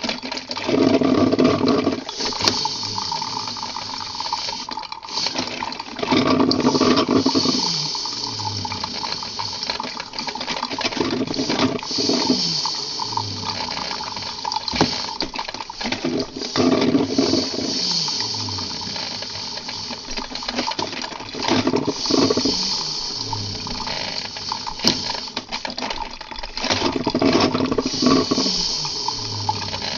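Coffee-bar machinery running over a steady hum and watery hiss. About every five seconds a louder mechanical surge lasts a second or two and winds down in a falling tone, with scattered clinks and rattles.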